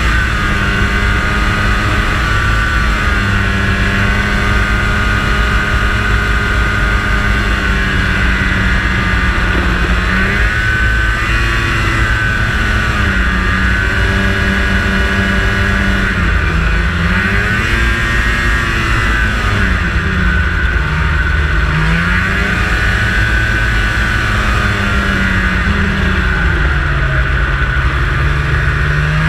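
2003 Ski-Doo MX Z 600 snowmobile's Rotax two-stroke twin engine running under way. Its pitch drops and climbs back several times as the throttle is eased and opened again, with a longer drop and rise near the end.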